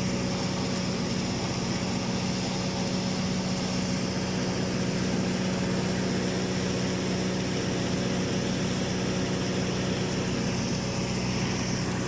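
Automatic girth welding equipment running steadily: an even machine hum with a constant high whine above it, with no change in pitch or level.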